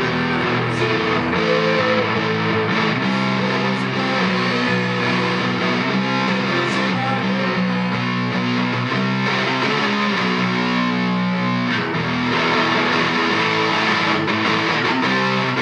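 Background music with guitar, playing steadily throughout.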